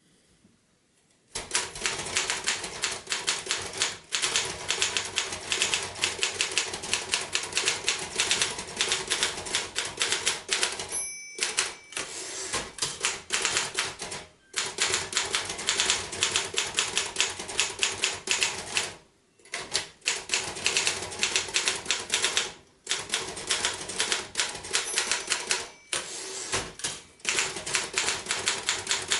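1950 Royal KMG manual typewriter being typed on: quick runs of key strikes clacking against the platen, with short pauses between runs. There is a brief ringing tone about eleven seconds in.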